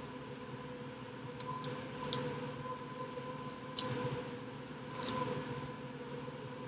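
Plastic bread wrapper crinkling in three short rustles as a sausage bun is handled and torn apart, over a steady background hum.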